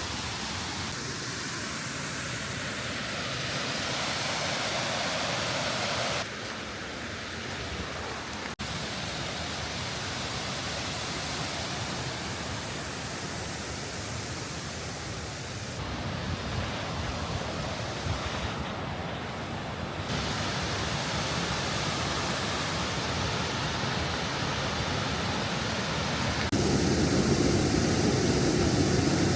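Rushing water from waterfalls and the river, a steady roar that changes abruptly in loudness and tone several times, growing fuller and louder near the end.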